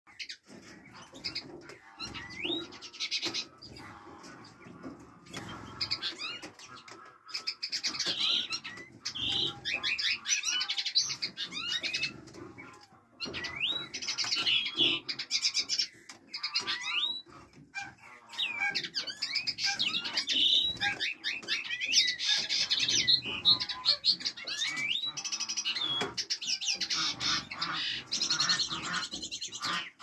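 Several captive finches chirping and twittering together: many quick upward-sweeping chirps and fast trills overlapping, with brief lulls.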